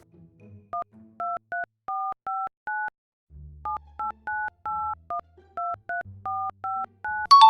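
Phone keypad tones: a quick string of short two-note dialing beeps as a number is keyed in, pausing briefly about three seconds in and then running on. A bright chime sounds right at the end.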